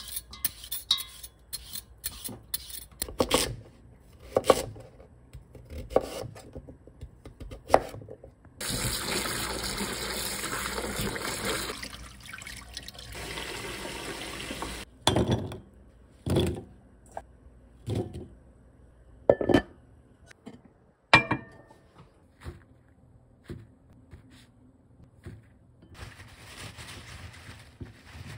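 Hand peeler scraping the skin off a sweet potato, a quick run of scrapes and clicks. Then tap water runs hard into a stainless steel bowl of cut sweet potato chunks for a few seconds and more softly for a few more, followed by a string of separate knocks. Near the end, paper towels rustle.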